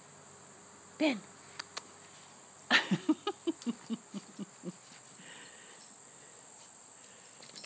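Crickets chirring steadily in one high, even tone. About three seconds in, a run of some eight short vocal sounds, each falling in pitch, comes about four a second and fades out.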